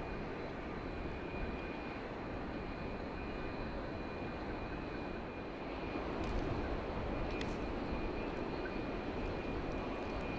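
Gusty wind in a snowstorm, rumbling on the microphone as a steady rush that grows louder about six seconds in, with a faint steady high tone underneath.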